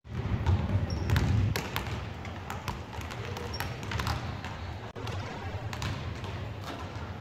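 Basketballs bouncing on a hardwood gym floor: irregular thuds from several balls being dribbled at once.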